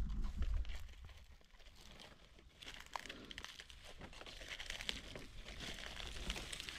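Dry leaf litter rustling and crackling with many small irregular snaps as the forest floor is disturbed while picking mushrooms, sparse at first and getting busier toward the end.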